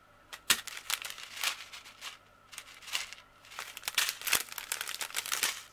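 Small plastic zip-lock bags of sequins crinkling and rustling as they are handled, in a run of irregular crackles that grows busier past the middle.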